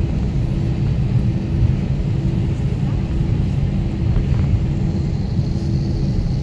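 Inside the cabin of an Airbus A320-family airliner taxiing: a steady low rumble of engines and rolling wheels, with a faint hum that comes and goes.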